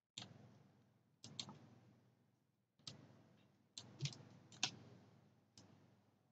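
Faint computer mouse clicks, about eight at irregular intervals, each followed by a short fading hiss: anchor points being placed with Photoshop's pen tool.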